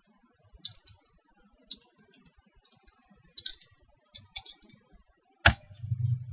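Computer keyboard keys tapped in small irregular groups as a word is typed, a dozen or so light clicks. About five and a half seconds in comes a single sharper, louder click, and a low hum starts after it.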